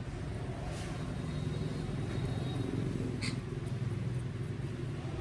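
Steady low rumble of road traffic, cars and motorbikes running, with two faint ticks about a second and three seconds in.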